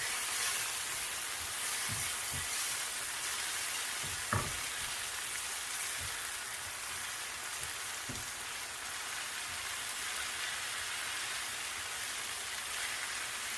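Onions and dried Egyptian spinach sizzling steadily as they fry in oil in a pan, with a few soft knocks from stirring, the clearest about four seconds in.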